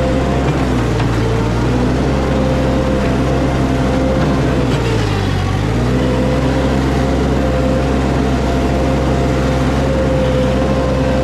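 Skid steer engine running steadily while the bucket works. About five seconds in the pitch sags for about a second, the engine briefly pulling down under load, then recovers.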